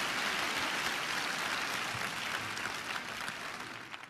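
Crowd applauding and cheering, fading away steadily; near the end it thins to scattered separate claps.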